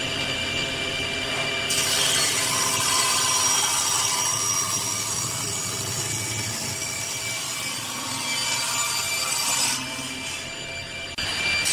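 Table saw blade spinning with a steady high whine, then cutting through a stacked block of glued-up wood from about two seconds in. The cut eases off briefly near the end before the blade bites into wood again.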